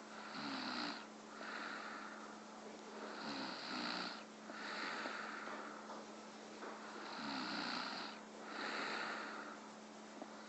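A person snoring heavily, three slow breaths about three to four seconds apart. Each is a rattling snore followed by a breathy rush of air. A steady hum sits underneath.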